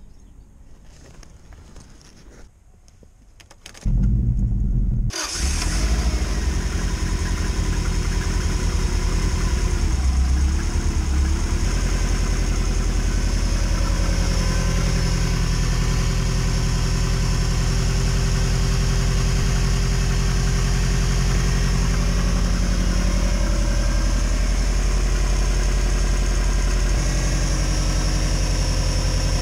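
1997 Subaru Impreza GC8's EJ20 2.0-litre turbocharged flat-four starting from cold about four seconds in, then idling steadily.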